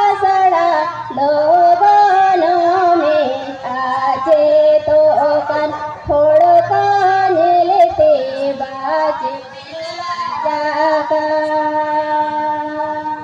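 A woman singing a Santali song into a handheld microphone, in phrases of gliding, held notes with short breaths between them, ending on a long held note.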